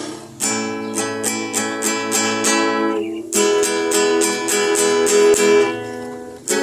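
Acoustic guitar strumming chords in a steady rhythm of several strokes a second, with a short break in the strumming about three seconds in, where a new chord starts, and another near the end.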